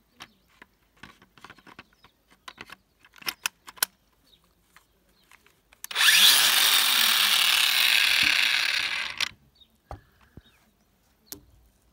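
Bosch GWS 18-125 V-LI cordless angle grinder switched on for a test run of its freshly fitted disc: it spins up quickly, runs steadily for about three seconds, then is switched off. Before it come a series of small clicks and knocks from handling the tool.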